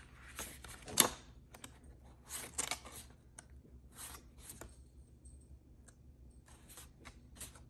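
Pages of a paper manual being turned and handled: soft rustles and page flips, with one sharp click about a second in.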